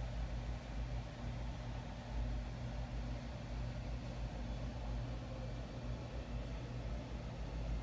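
Steady low mechanical hum from a running machine, with a low rumble and a faint even hiss underneath.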